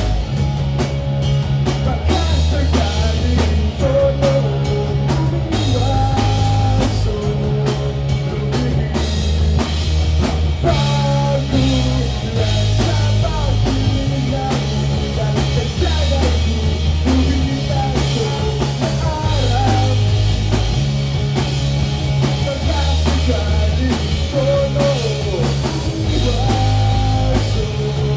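Rock band playing live: a drum kit keeps a steady beat under a repeating bass line, with guitar carrying the melody.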